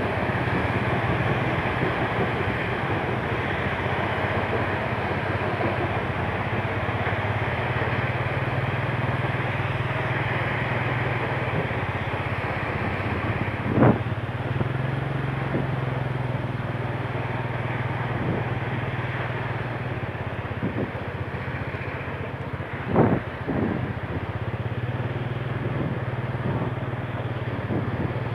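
Motorcycle engine running steadily at low speed as the bike rolls over a muddy, rough dirt road, heard from the rider's seat. Two short knocks stand out, one about halfway through and another about nine seconds later.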